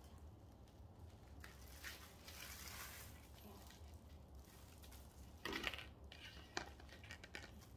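Thin plastic nursery pot being handled as a foxglove's root ball is worked out of it: soft scraping and rustling of plastic, roots and soil, then two light knocks about five and a half and six and a half seconds in.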